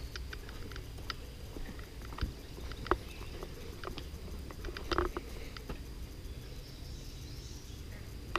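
Footsteps on a dirt forest trail, with scattered crackles and snaps of twigs and dry leaves underfoot; the loudest snaps come about three and five seconds in.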